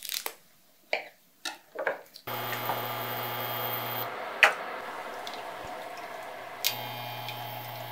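A few light taps, then a kitchen appliance starts up about two seconds in and runs with a steady electrical hum. Its low hum cuts out for a couple of seconds with a click and comes back with another click, as if the appliance is switching its power on and off.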